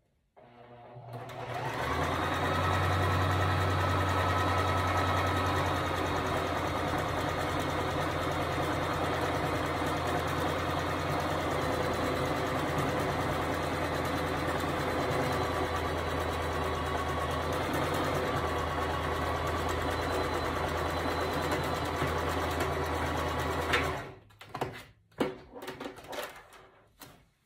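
Singer Fashion Mate electric sewing machine running steadily as it sews a zigzag stitch through a scrap of cotton pillowcase with a heavy denim needle. It speeds up over the first couple of seconds and stops a few seconds before the end, followed by a few light clicks.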